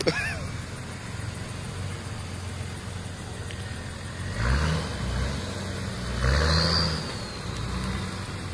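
Nissan Patrol's 4.2-litre engine idling, then revved twice about two seconds apart, each rev brief and rising, as the 4WD works its way through mud.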